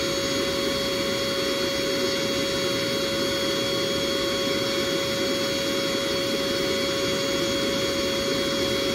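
Built-in 110V electric air pump of a queen-size air mattress running steadily, inflating the mattress. It makes a continuous whir with a constant pitched hum in it.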